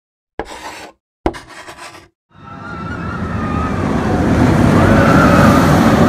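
Intro sound effects: two short sharp hits, then a rushing rumble like a passing vehicle that starts about two seconds in and swells steadily louder.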